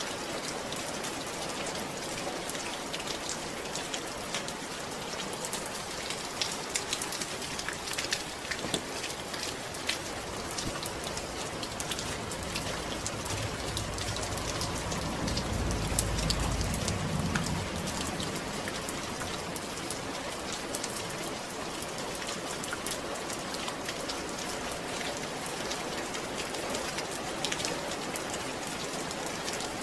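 Steady rain, with single drops ticking close by. About halfway through, a low rumble swells and then fades.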